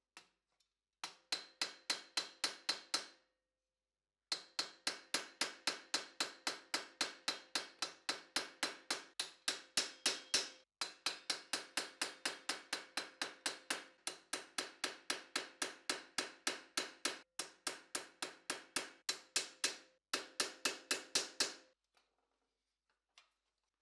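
Hammer striking a steel punch set on the steel lames of a cuirass skirt over a stake: rapid, even blows at about four a second with a steady metallic ring. The blows come in runs, breaking off briefly at about 3 s, 11 s and 20 s, and stop about two seconds before the end.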